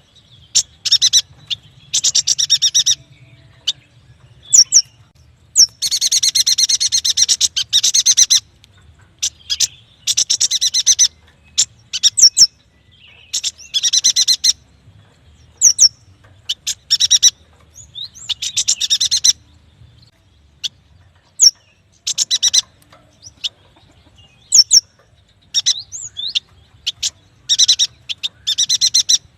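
A yuhina singing: repeated bursts of rapid, high chirping trills lasting a second or two, broken up by short single sharp chirps.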